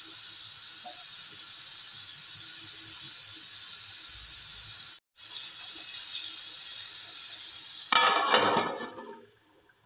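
Sliced brinjal and green chillies sizzling steadily in hot oil in a kadai. About eight seconds in, a steel lid clatters down over the pan, and the sizzling turns faint under the lid as the curry is left to cook covered.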